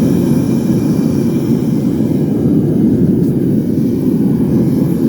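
Melting furnace running at full blast for an iron melt, with a steady, low rushing noise from the fire and its air supply that does not change.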